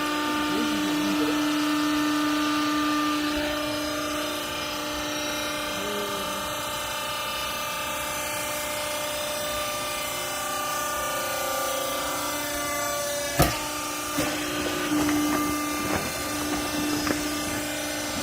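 Hydraulic baler running, a steady machine hum with several held tones. A sharp clank comes about thirteen seconds in, followed by a few lighter knocks.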